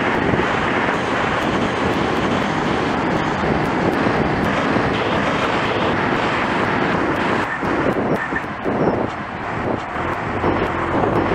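Wind and road noise on a bike-mounted camera's microphone while riding, with cars overtaking close alongside, the loudest a car passing near the rider toward the end.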